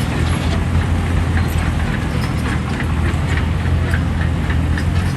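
Heavy diesel engine of earthmoving machinery running steadily under load, with frequent light metallic clicks and clanks over the drone.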